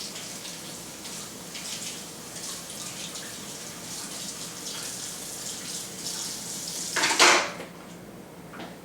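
Water running steadily from a kitchen faucet into a sink, with a brief louder noise about seven seconds in.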